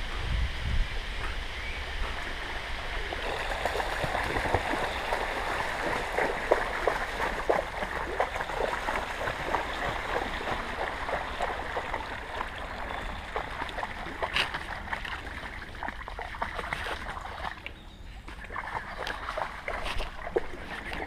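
Continuous splashing and sloshing of shallow floodwater as a mountain bike rides through it along a submerged wooden boardwalk, with a dog running and splashing ahead.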